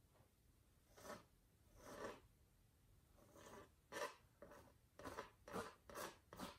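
Faint scrapes of a palette knife dragging and lifting oil paint on a canvas: two separate strokes about a second apart, then a quicker run of short strokes in the second half.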